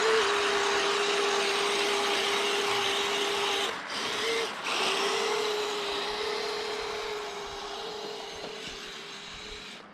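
Kyosho Blizzard 2.0 RC snowcat's brushless motors whining steadily under a rushing noise, the pitch stepping up and down with the throttle. The whine cuts out twice briefly about four seconds in, then fades gradually toward the end.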